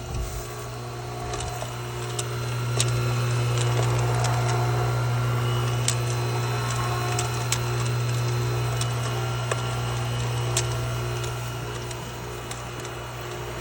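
Pool pump running with a steady low hum, and an irregular rattle of sharp ticks and clicks on top of it.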